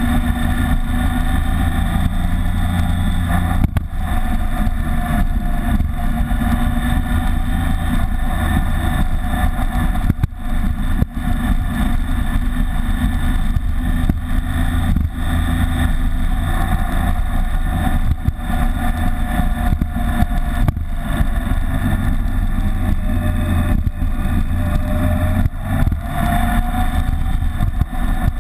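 BMW K75 motorcycle's three-cylinder engine running steadily under way, mixed with wind and road noise, heard from a camera on the windshield. The engine pitch dips and climbs again a few seconds before the end.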